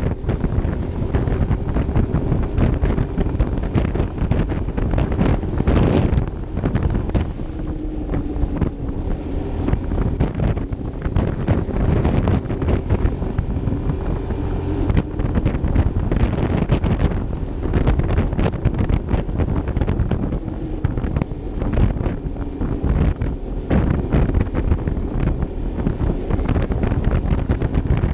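Wind buffeting the microphone on a moving Vespa LXV 150 scooter, with the scooter's single-cylinder engine running underneath as a faint low hum.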